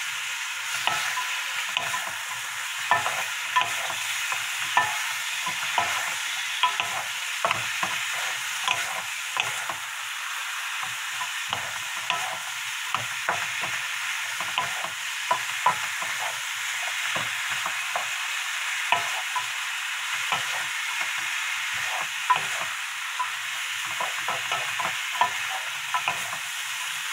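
Pork skin and sliced onion and green onion stir-frying in oil in a hot frying pan: a steady sizzle, with frequent irregular scrapes and taps of two wooden spatulas tossing the food against the pan.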